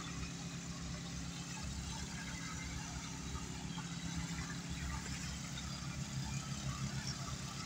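Faint, steady engine running at idle, a constant low hum.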